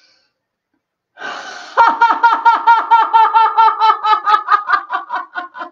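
A woman's belly laughter in a laughter-yoga exercise. After a held breath, a short breathy rush turns about two seconds in into a loud, rapid run of 'ha-ha-ha' pulses, about five a second and steady in pitch, that thin out near the end.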